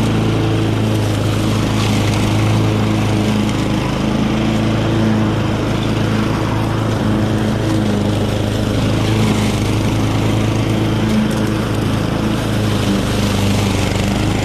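Honda self-propelled lawnmower's single-cylinder petrol engine running steadily at a constant speed, after its carburetor has been cleaned and refitted.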